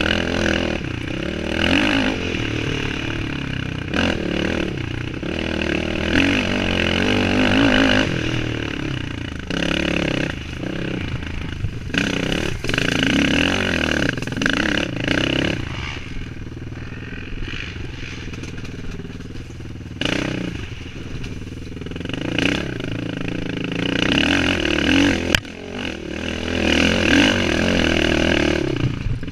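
Suzuki LT-R450 quad's 450cc single-cylinder four-stroke engine being ridden hard on a dirt trail, revving up and down as the throttle opens and closes. About halfway through it drops to lower revs for a few seconds before picking up again.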